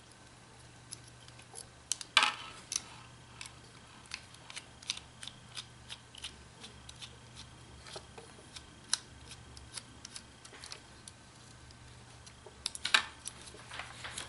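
Small hand screwdriver with a T6 Torx bit backing out the small body screws of a Cold Steel Recon 1 folding knife: faint, irregular light metal clicks and ticks, with a louder scraping click about two seconds in and again near the end.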